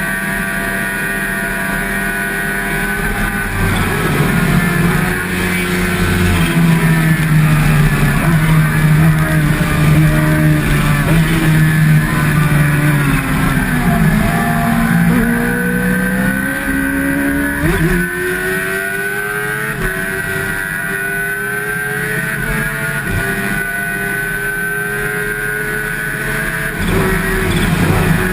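Sport motorcycle engine on the move, with wind rushing past. The engine pitch holds steady at first, then drops as the bike slows about halfway through. It climbs again, with a sudden step about two-thirds of the way in, then settles into a steady cruise.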